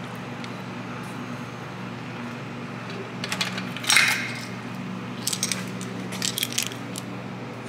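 Light metallic clinks and taps of a bushing press tool's parts (threaded rod, steel cup, washers and nut) knocking together as it is handled and carried, in two clusters a few seconds in, the loudest clink about four seconds in. A steady low hum lies underneath.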